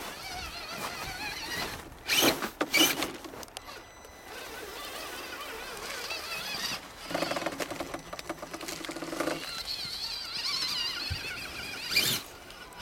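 Axial SCX10 RC rock crawler running in snow, its 21-turn brushed Traxxas motor whining thinly, the pitch wavering up and down with the throttle. A couple of loud knocks come about two seconds in, and a steadier low buzz runs from about seven to nine seconds.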